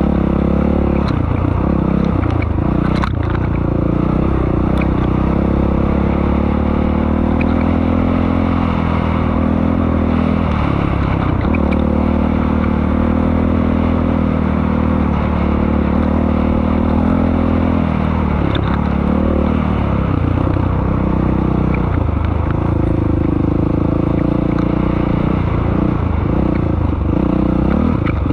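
Dirt bike engine running hard over the track, revving up and dropping off several times as the throttle opens and closes, with some clatter from the bike over rough ground.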